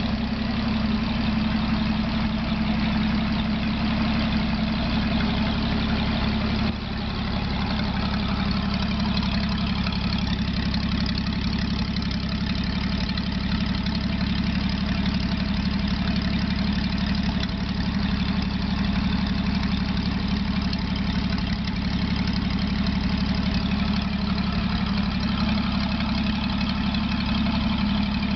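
Freshly rebuilt M29C Weasel engine, a Studebaker Champion six-cylinder flathead, idling steadily with no exhaust pipe fitted to the manifold. The level dips briefly about seven seconds in.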